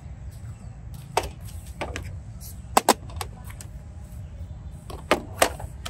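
A handful of short, sharp clicks and knocks from handling, a pair close together near the middle and another pair near the end, over a steady low rumble of wind on the microphone.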